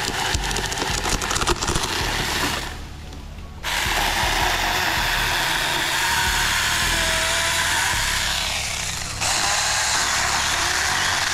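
Battery-powered mini electric chainsaw running at full speed and cutting, with a crackle as the chain bites in over the first couple of seconds. The motor cuts out about two and a half seconds in and starts again a second later. It eases off again near the nine-second mark and comes straight back on.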